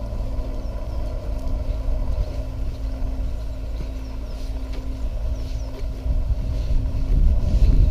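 Wind buffeting the microphone, heard as a low, uneven rumble that grows stronger near the end.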